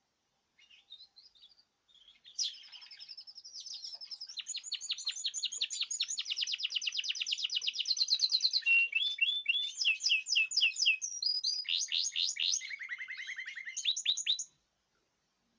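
A caged songbird singing: after a few faint chirps, a long song of fast trills and rapidly repeated high notes, switching to a new trill every second or two, which stops abruptly near the end.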